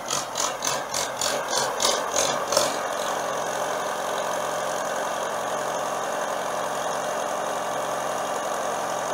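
Old Farmall tractor engine idling steadily. Over the first few seconds a sharp rhythmic clicking, about three a second, runs over it and then stops.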